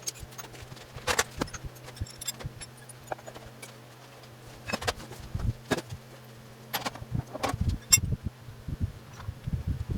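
Scattered metallic clinks, clicks and knocks of hand tools and small parts being picked up and set down during shop cleanup, over a steady low hum.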